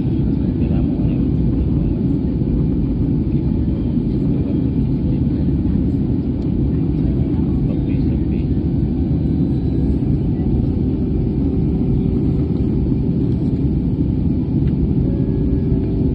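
Steady low drone inside a jet airliner's cabin in flight: engine and airflow noise heard at a window seat, even throughout, with a faint steady hum.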